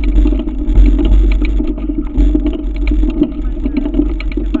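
Wind rumbling on an action camera's microphone as a mountain bike climbs a gravel track. Irregular clicks and rattles come through, typical of tyres crunching over loose stones and the bike shaking.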